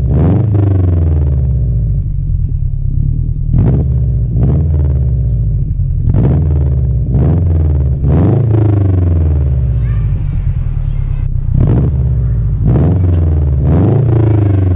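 Subaru WRX STI's turbocharged 2.5-litre flat-four engine and exhaust rumbling under way in a manual car, the revs repeatedly falling and then climbing sharply again, about eight times, as it is driven through the gears.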